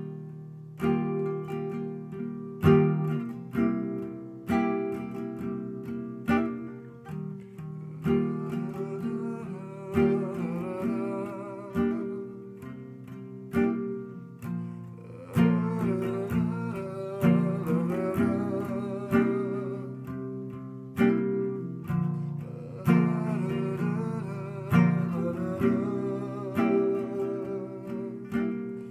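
Nylon-string classical guitar, fitted with a capo, fingerpicked in a steady pattern of chords, with a strong accent about every two seconds.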